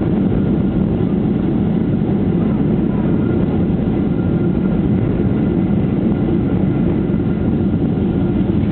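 Steady low rumble of a jet airliner heard from inside the passenger cabin: engine and airflow noise holding at an even level.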